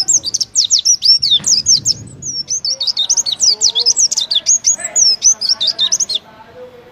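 Oriental white-eye singing a fast, unbroken run of high, sweeping chirps: the rapid burst song that bird keepers call a tembakan. It stops about six seconds in.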